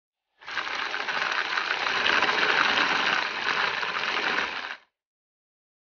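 Electric mini chopper running for one burst of about four seconds, its blade chopping dates and nuts into crumbs. It starts about half a second in and cuts off abruptly near the end.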